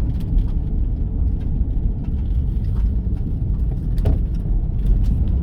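Steady low rumble of road and engine noise inside a moving vehicle's cabin while driving slowly, with a few faint clicks.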